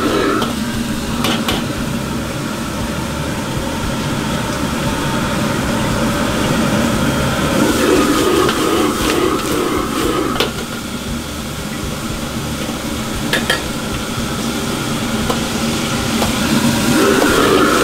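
Stir-frying in a wok over a restaurant wok burner: steady burner roar and food sizzling, with the metal ladle scraping and knocking against the wok a few times. About eight seconds in the sizzling swells as liquid is ladled into the hot wok.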